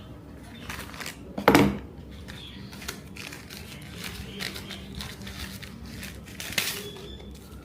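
Packaging being handled and opened by hand: irregular crinkling, rustling and tearing, with a louder burst about one and a half seconds in and another near the end.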